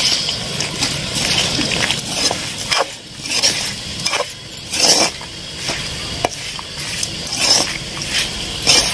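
Metal spatula stirring and scraping a dry fry of bitter gourd, peanuts and curry leaves around a black wok, in irregular scrapes and clinks over a faint sizzle.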